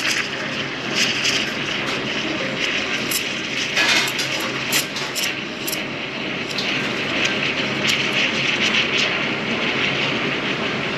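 Espresso machine steam wand steaming milk in a stainless steel jug: a steady hiss, with short sharp spitting crackles through the first half that thin out toward the end.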